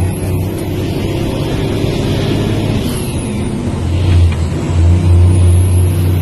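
Large truck's diesel engine running, heard from inside the cab as a steady deep hum that swells louder from about four seconds in.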